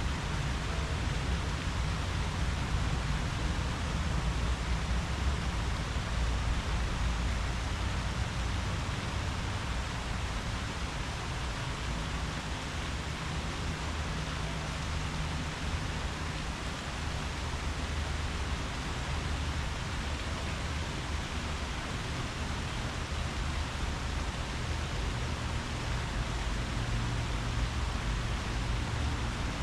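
Wind rushing steadily through tree leaves, with a low, uneven rumble underneath.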